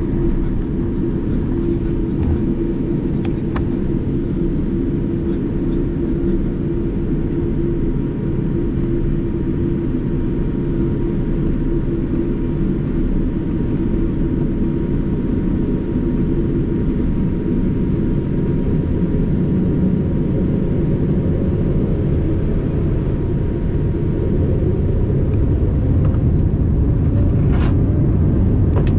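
Steady rumble of a Boeing 787-9 heard from inside the passenger cabin, with a steady hum running through it, growing slightly louder over the last few seconds. A brief tick comes near the end.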